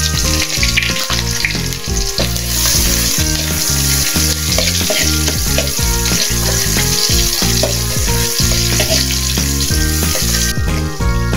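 Garlic and onion sizzling in hot oil in a metal wok, stirred with a metal spoon that scrapes and clicks against the pan. The sizzle grows louder a couple of seconds in and falls away sharply near the end.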